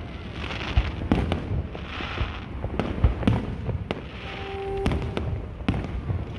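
Aerial fireworks shells bursting in a public display: a run of sharp booms at irregular intervals, sometimes two or three within half a second, with stretches of fizzing crackle between them.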